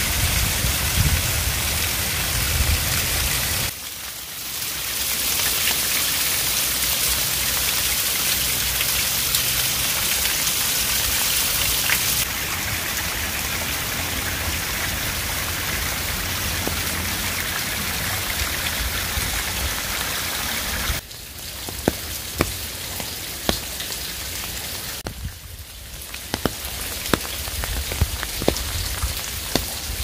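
A small waterfall: a thin stream of water falling down a rock face and splashing steadily onto the rocks below. About two-thirds of the way in the rush drops away, and water dripping from a rock overhang is heard as many separate sharp ticks of drops landing.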